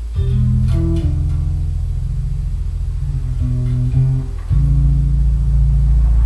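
Bass guitar playing a riff alone: low notes left ringing under shorter, higher plucked notes, with a louder low note struck about four and a half seconds in.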